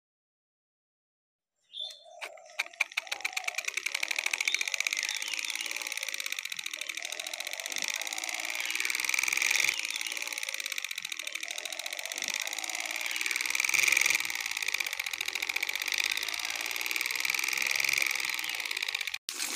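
Small hobby motor on a homemade model tractor starting about two seconds in, driving a rubber-band belt to a miniature chaff cutter's flywheel and blades. It runs as a fast, even clatter while grass is fed in and chopped.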